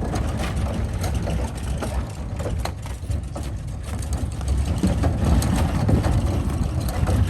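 A vehicle engine idling with a steady low rumble, and a few faint clicks and knocks over it.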